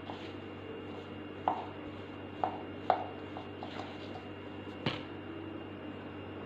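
A spoon mixing a mashed boiled-potato filling in a ceramic bowl, with irregular sharp clicks as it knocks against the bowl, the loudest about five seconds in.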